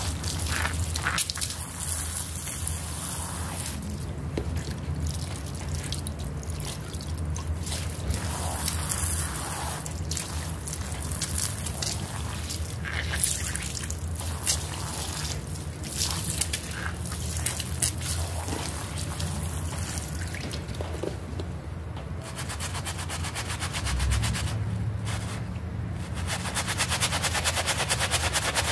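Water poured onto a soaked carpet sample, then wet squelching and scattered clicks as fingers press and rub into the pile. Near the end a plastic-bristled scrub brush starts scrubbing it in fast, even strokes. A low steady hum runs underneath.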